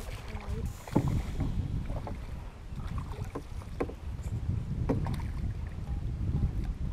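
Wind rumbling on the camera microphone, with several sharp knocks of rod and landing-net gear against the boat, while a hooked fish splashes at the surface beside the boat as it is brought to the net.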